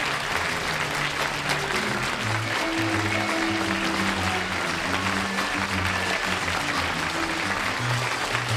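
Studio audience applauding steadily over the closing theme music, whose held bass notes change every second or so.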